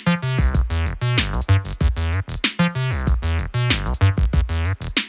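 Electronic music: a drum-machine beat under a synthesizer line whose notes sweep downward in a repeating pattern.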